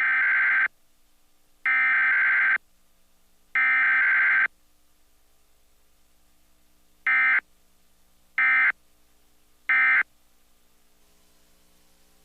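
Emergency Alert System SAME digital data tones for a Required Weekly Test: the header burst sent three times, about a second each and two seconds apart, then, about three seconds later, three short end-of-message bursts.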